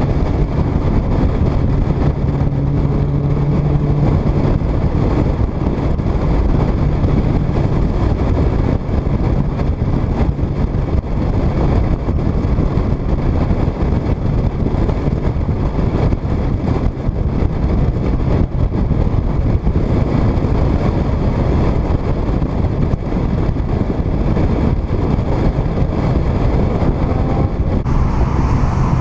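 Car cruising at highway speed, heard through a microphone mounted on the outside of the car: a steady rush of wind and road noise over a low engine drone. The drone is strongest a few seconds in and then fades into the noise.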